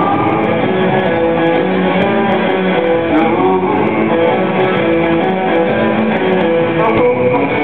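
Live instrumental rock band playing: an electric guitar melody of held notes over rhythm guitar, bass guitar and drums.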